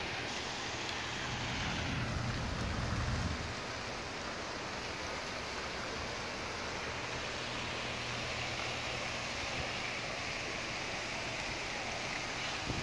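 Steady splashing of a park fountain mixed with the hum of city traffic, with a low rumble that swells briefly about two seconds in.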